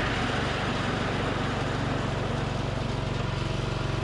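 Ariens zero-turn riding mower's gasoline engine running steadily at an even speed, seconds after catching on its first start after being rebuilt from scrap parts.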